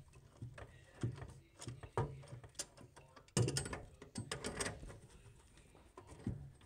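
A wrench clicking and knocking against the nut of a sink's cold-water supply line at the shut-off valve as it is loosened: irregular clicks and taps, busiest a little past halfway.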